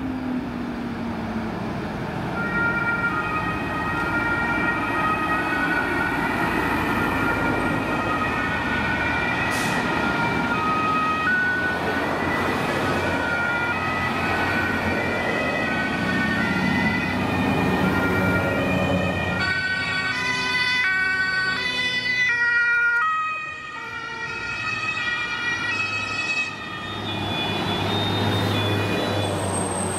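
German emergency-vehicle two-tone sirens from a passing fire-brigade convoy, several sounding at once and overlapping, over the diesel engines and tyres of the passing trucks. Near the end the sirens weaken and a truck engine comes to the fore as it passes.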